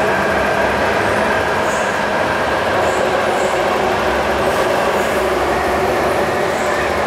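MTR Tung Chung Line K-train electric multiple unit pulling out of the platform, its wheels and motors running loud and steady, with a steady whine over the rumble.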